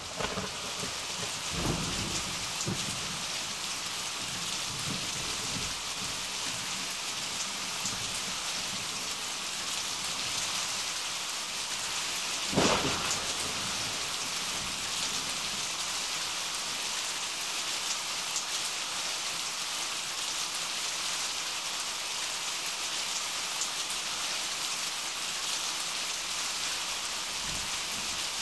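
Steady hiss of rain, with low thunder rumbles in the first few seconds and one loud thunderclap about halfway through.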